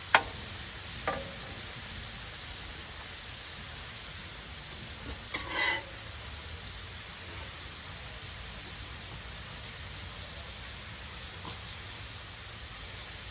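Smash burger patties sizzling steadily as they fry on a hot flat cooking surface. A sharp clink comes at the very start, a lighter one about a second in, and a short clatter about five and a half seconds in.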